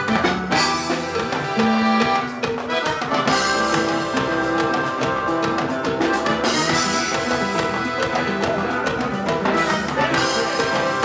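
Band music of button accordion, drum kit, bass and guitars playing an upbeat dance tune. Right at the start the drums and bass come in under the accordion, which was playing alone just before, and a steady beat carries on from there.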